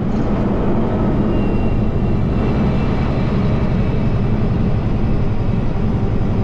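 Steady drone of an International ProStar semi-truck's diesel engine and road noise, heard from inside the cab while driving, with no change in pitch or level.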